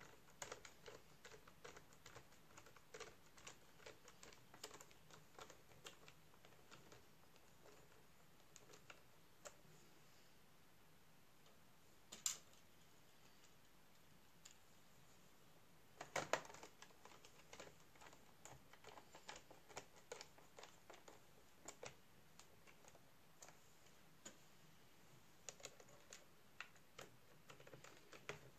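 Faint, scattered small clicks and taps of plastic and tools as the laptop's screen bezel is worked at and pressed back into place, with two louder clicks about the middle.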